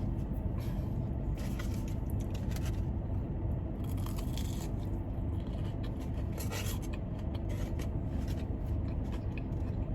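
Steady drone of a car's air conditioning, with scattered short clicks and scraping sounds from eating and handling food.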